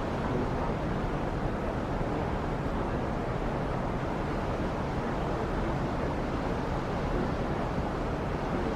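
A boat's engine running steadily, with water rushing and wind noise on the microphone, an even low rumble.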